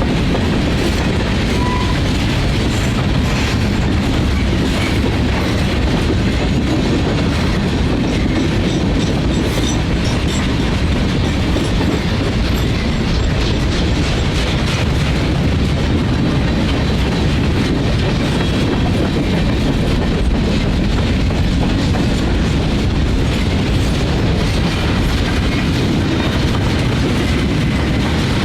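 Freight train rolling by, a steady, loud rumble of steel wheels on the rails that holds without a break.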